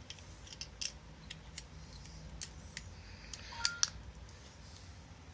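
Small plastic shutter-button remotes being handled and set down on a table: scattered light clicks and taps. About three and a half seconds in, a short two-note electronic beep, the second note higher.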